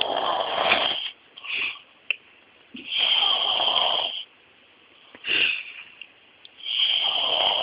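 A person snoring in sleep: three long snores about every four seconds, with a short, sharp breath between them.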